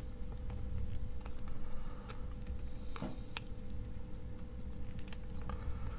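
Small side cutters snipping component leads on a circuit board: several sharp clicks, the two loudest a little after three seconds in.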